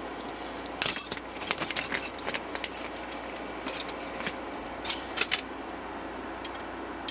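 Small metal clinks and rattles from a hex key working the build-plate screws of an Elegoo Mars 2 Pro resin 3D printer as they are loosened. A quick run of clicks starts about a second in, followed by a few scattered clinks later.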